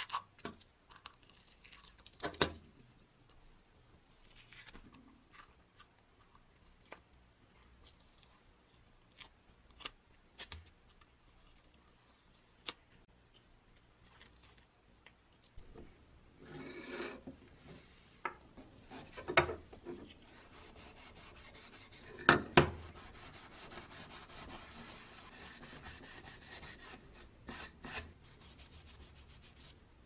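Hand work on a bench: a craft knife scraping and trimming paint from the painted housing of a Peugeot coffee grinder, in small scattered scrapes and clicks. About halfway through, this turns to steadier rubbing, with a few sharp knocks on wood.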